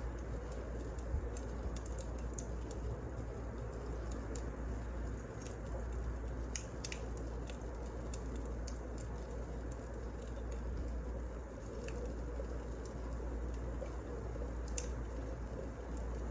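Wood fire crackling: irregular sharp pops and snaps over a steady low rumble and hiss of burning logs.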